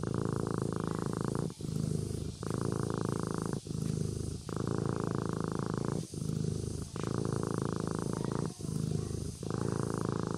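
Kitten purring in its sleep, with the purr switching between a longer and a shorter stretch with each breath out and in, about four breaths in all.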